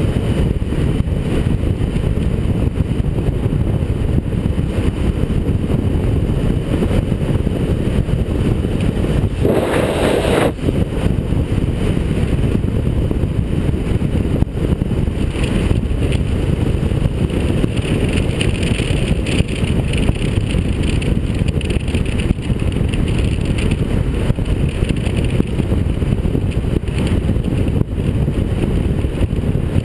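Wind rushing over the microphone of a camera on a road bike descending at speed, a steady loud low rush with one brief brighter whoosh about ten seconds in.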